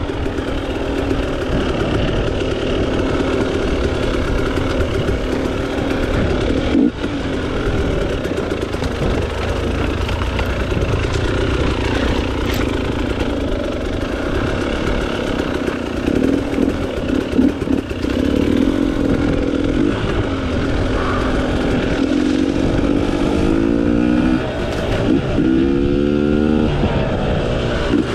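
KTM 300 XC-W two-stroke single-cylinder dirt bike engine running under load on the trail, the throttle working on and off. Near the end the revs sweep up and down several times in quick succession.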